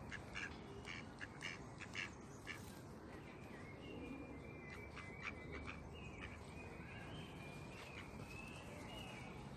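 Faint mallard duck calls with other birds singing: a quick run of short calls in the first couple of seconds, then thin whistled bird calls.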